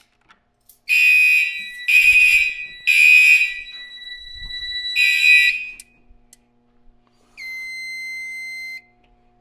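Fire alarm system sounding in the temporal-three evacuation pattern: three loud high-pitched horn blasts a second apart, a pause, then the start of the next cycle, after which it goes quiet. About seven seconds in comes a single steadier, quieter beep lasting about a second and a half.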